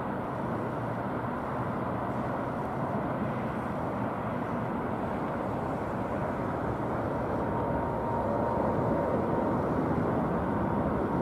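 Boeing 787-9 airliner climbing out after takeoff: a steady rush of jet engine noise that slowly grows louder as it comes toward overhead, with a steady whine coming in over it in the last few seconds.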